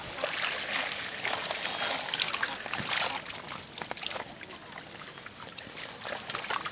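Shallow pond water splashing and sloshing as a fine-mesh seine net is hauled up through it. The splashing is loudest about three seconds in, then eases off.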